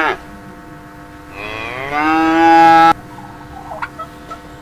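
Cow mooing: the tail of one moo at the start, then a long moo that rises in pitch and is held before cutting off abruptly about three seconds in.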